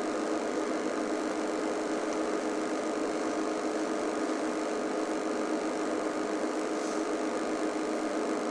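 Safari game-drive vehicle's engine idling: a steady, unbroken hum with a few constant tones.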